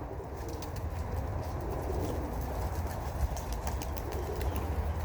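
Homing pigeons at the loft: faint cooing and scattered light clicks over a steady low rumble.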